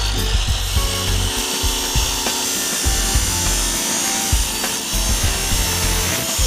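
Abrasive chop saw grinding steadily through a metal pipe, over background music with a shifting bass line.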